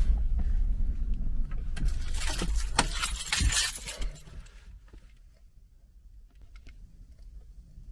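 A car's engine running until about four seconds in, when it is switched off; meanwhile the ignition keys jangle on their ring for a second or two as the key is turned and pulled.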